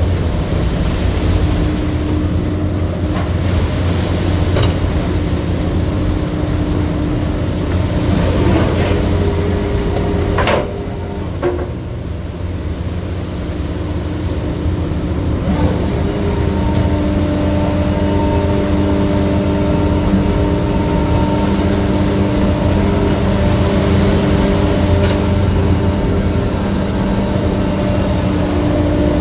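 Crab boat's engine and deck machinery running steadily: a low hum with several steady whining tones. About ten seconds in, one whine falls sharply in pitch and the sound drops briefly before picking up again.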